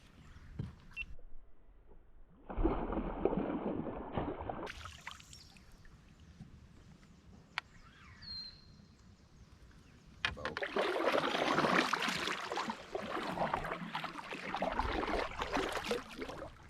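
A kayak squeezing through tight cover: rustling and scraping as vegetation brushes along the hull, in two long stretches with a quieter gap between them.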